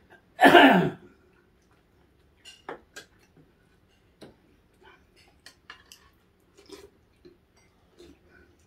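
Small clicks and taps of a meal at the table: utensils, food packaging and chewing, scattered and uneven. One louder, brief sound comes about half a second in.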